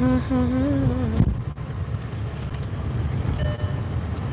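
Steady low rumble of a car's engine and road noise heard from inside the cabin while driving. A short wavering pitched tone sounds in the first second, and a brief high tone about three and a half seconds in.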